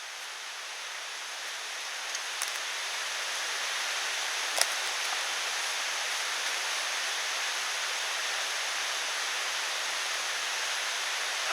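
Steady rushing of a mountain stream, growing louder over the first few seconds and then holding even. One sharp click about four and a half seconds in.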